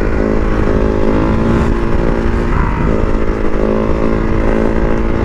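Husqvarna SMR 510 supermoto's single-cylinder four-stroke engine running steadily under way, its note changing briefly about two and a half seconds in before holding steady again.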